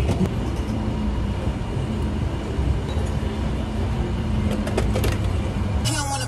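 Steady low rumble of a minivan heard from inside the cabin, with a few faint clicks partway through. Music comes in near the end.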